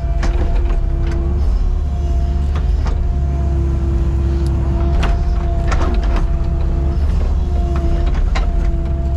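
Excavator's diesel engine running with a steady hydraulic whine whose pitch dips briefly a few times as the hydraulics take load, over a low rumble. Scattered sharp knocks and clanks from the bucket and linkage working the sand.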